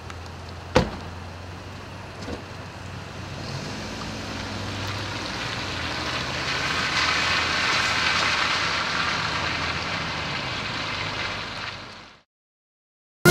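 A car door slams shut about a second in, then the sedan pulls away on wet pavement, its engine and tyre hiss swelling and then fading into the distance before the sound cuts off.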